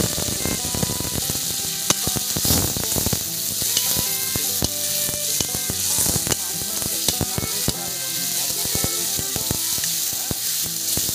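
Curry masala of fried onion and garlic with freshly added ground spice and tomato paste, sizzling in hot oil in a pan. It is being stirred, with many sharp clicks and crackles of spoon on pan and spattering oil.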